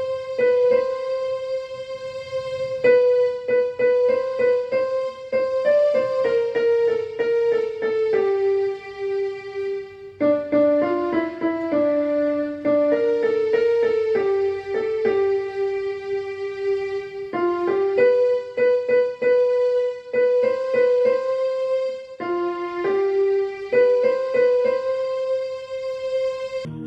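Electronic keyboard playing a single melody line of quick notes that step down and climb back again, with many notes struck in fast repetition.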